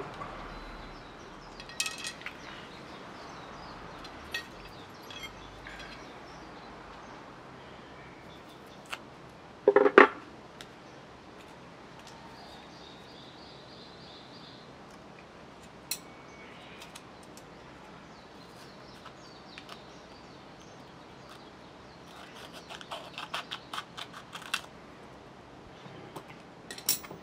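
Bamboo rod sections and small tools being handled on a wooden board: scattered light clicks and taps, one louder knock about ten seconds in, and a run of quick small clicks near the end.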